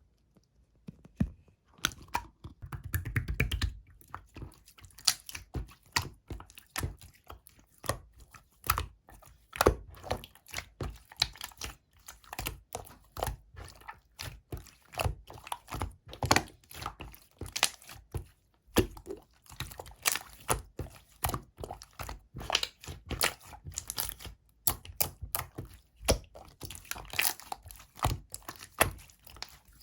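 Clear slime being squished and poked by hand, making a dense, irregular run of sticky clicks and small pops that starts about two seconds in.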